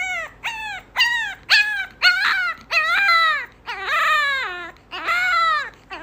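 A dog whining and howling: five short yelps about two a second, each falling in pitch, then three longer drawn-out howls that slide down in pitch.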